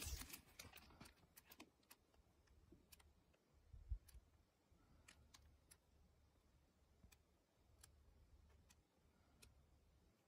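Faint crinkling of a manga volume's plastic shrink-wrap as it comes off, then paper pages being turned one at a time, each giving a light tick a second or so apart. There is a soft bump from handling the book about four seconds in.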